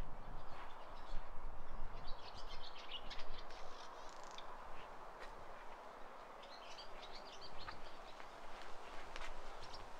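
A bird singing in two short runs of quick, high chirping notes, a few seconds apart, over a steady outdoor background hiss. Footsteps on stone are heard in the first second or two.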